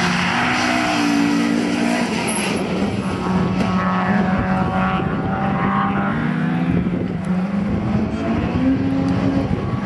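Honda B16A1 1.6-litre four-cylinder engine of an MG ZR rally car running hard, its note rising and falling several times as the driver shifts gear and lifts off through the corners.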